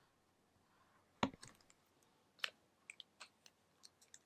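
A few soft clicks and taps from a dry-erase marker used on a small whiteboard and then put down, the loudest about a second in.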